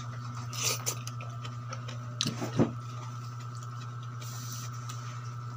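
A steady hum from an electrical appliance in a small room, with a few faint soft clicks about two and a half seconds in.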